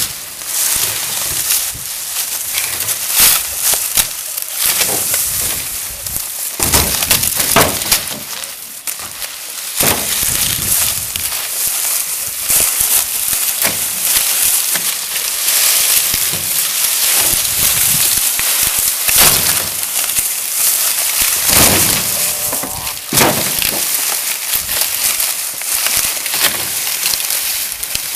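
Dry cut sugarcane stalks and leaves rustling and crackling as they are handled and gathered by hand, with sharp snaps of cane every few seconds.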